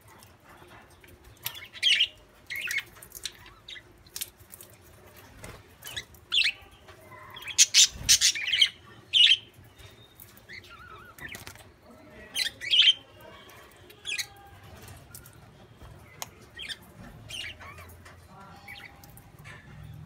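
Budgerigars giving short, sharp chirps and squawks on and off, in loudest bunches about eight and thirteen seconds in.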